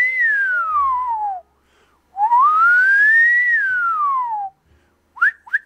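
A person whistling two long slides, each rising in pitch and then falling back down, with a short pause between them. Near the end come quick short whistled chirps.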